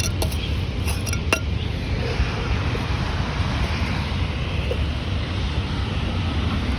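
A few sharp clinks of glass in the first second and a half, then a steady low rumble with a hiss.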